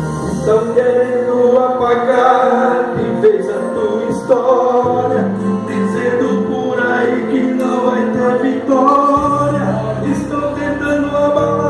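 Gospel music: a singing voice with held, gliding notes over sustained instrumental accompaniment.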